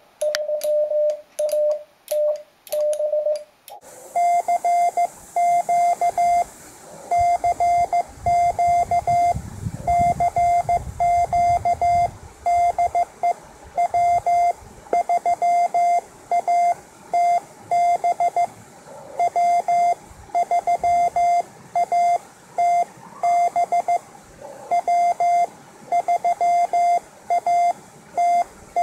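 Hand-sent Morse code from a ham radio transceiver's CW sidetone: a single steady pitch keyed on and off in dots and dashes, calling CQ for a contact. The tone sits a little higher after about four seconds.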